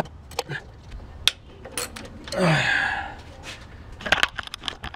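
Scattered light metallic clicks and taps of hands and tools working the bolts on a VQ35 engine's intake plenum. About two and a half seconds in comes a loud breathy sigh with a falling pitch.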